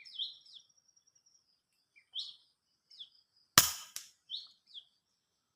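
Small birds chirping in short, falling notes, and about three and a half seconds in a single sharp rifle shot, the loudest sound, with a brief ringing tail.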